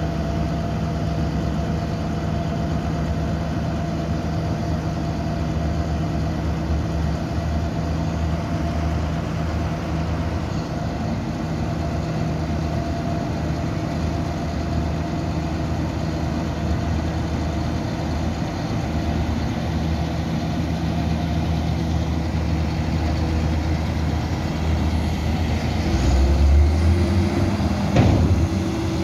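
John Deere 7930 tractor's diesel engine running steadily while its hydraulics hold a trailer of chopped maize tipped up. The engine grows louder near the end, and a single sharp knock comes shortly before the end.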